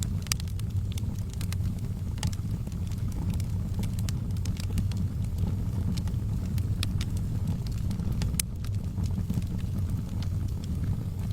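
Wood fire burning in a fireplace: a steady low rumble of flames with scattered sharp crackles and pops, a louder pop about eight seconds in.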